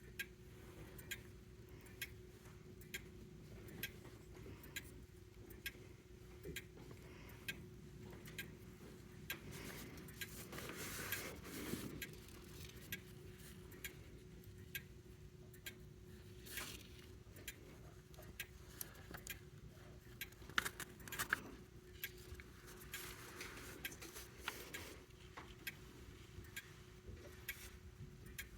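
Grandfather clock movement ticking steadily, about one tick a second, over a faint steady hum. A brief rustle near the middle and a couple of louder clicks about two-thirds of the way through break in.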